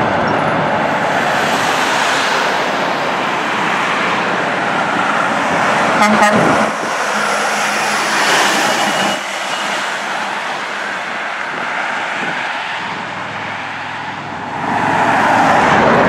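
Heavy diesel trucks passing on a highway, with engine and tyre noise throughout. A Mack dump truck goes by close at about the midpoint, and another truck's noise builds near the end as it approaches.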